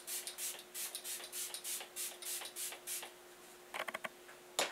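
A fine-mist pump bottle of Morphe luminous setting spray being spritzed onto the face over and over: short quick hisses, about three to four a second, for some three seconds. A few light clicks follow near the end.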